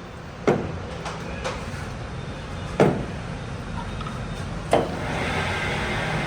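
Three sharp knocks about two seconds apart, each with a brief ring, over a steady low machine hum that grows louder about five seconds in.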